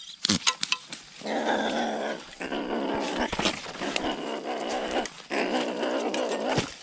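A ferret-badger caught in a leg-hold trap growling at the trapper in three long, rasping bursts, the middle one the longest, after a few light clicks and rustles.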